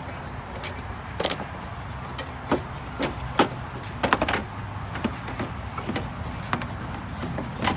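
Scattered clicks and knocks of the intake assembly being worked loose and lifted out of the engine bay once its last bolts are out, over a steady low hum.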